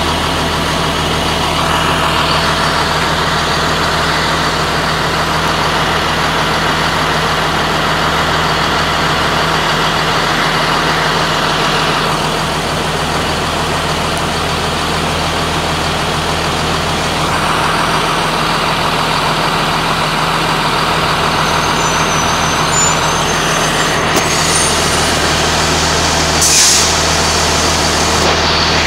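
Blue Bird school bus diesel engines running steadily as buses pull in and stand, with a short hiss of air brakes near the end.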